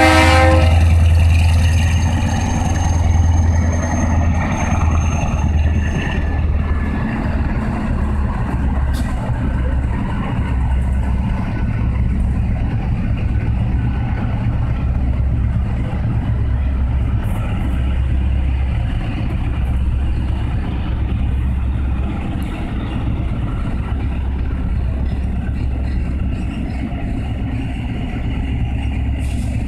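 Work-train locomotive engine running with a heavy, pulsing low rumble as the train rolls slowly past. A horn note cuts off just at the start, and a faint high whine sounds for a few seconds soon after.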